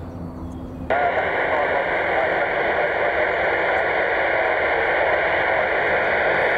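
Airband radio receiver giving a loud, steady static hiss with the tinny, narrow sound of a small radio speaker; the hiss cuts in abruptly about a second in, with no voice in it.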